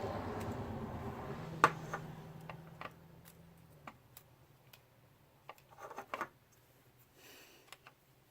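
Scattered light clicks and taps of small parts and tools being handled, the sharpest about a second and a half in and a quick cluster around six seconds. A low hum fades out over the first few seconds.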